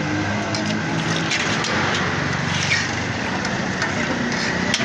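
Jalebi frying in hot oil in a wide karahi: a steady sizzling hiss with scattered crackles, over a low background rumble.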